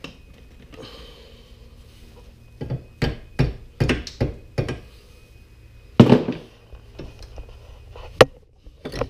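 Hammer blows on a copper pipe clamped in a bench vise, striking to break a piece off it: a quick run of about six strikes, then a few more spaced out, the loudest past the middle.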